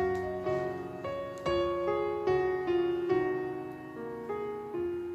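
Background piano music: a slow melody of single notes, each struck and then fading, about two notes a second.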